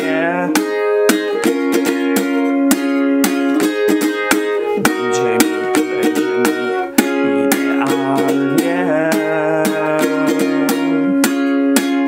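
Ukulele with a capo on the first fret, strummed in a fast, steady strumming pattern through a run of chords, changing chord every second or two.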